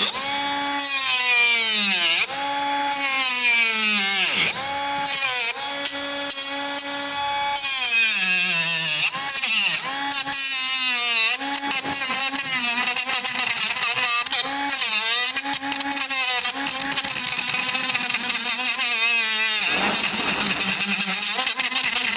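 Small handheld power saw running at high speed, cutting into the plastic housing of a tailgate latch. Its whine sags in pitch each time the blade bites and recovers between cuts, then stops shortly before the end.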